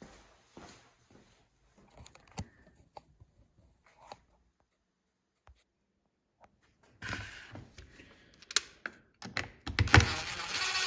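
Small parts and tools being handled on a workbench during reassembly of a cutoff saw's carburetor: scattered light clicks and taps of plastic and metal, a quiet pause around the middle, then busier clatter with a few sharp knocks near the end.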